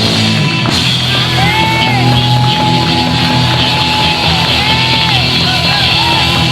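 Live gospel band music: steady bass notes under a long held, sliding high melody line.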